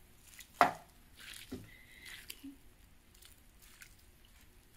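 Chicken bouillon broth poured from a glass measuring cup onto dry bread stuffing in a plastic-lined slow cooker: soft splashing and dripping as the liquid soaks in. A single sharp knock about half a second in is the loudest sound.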